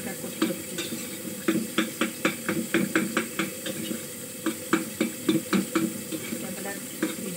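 A metal utensil scraping and clinking against a steel cooking pot as food is stirred, several quick strokes a second with a short lull a little past the middle. A faint steady hiss of cooking sits underneath.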